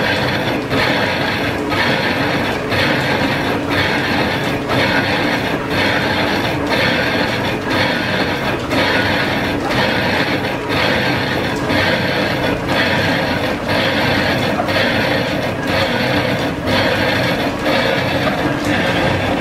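Line-shaft-driven metal lathe taking a roughing cut on a casting for steam-engine piston rings: a steady grinding scrape of the tool in the metal, broken by short regular dips a little more than once a second.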